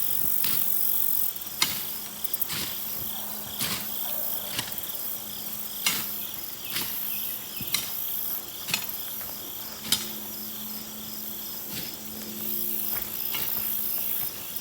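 Crickets chirping steadily, with a sharp click or knock about once a second.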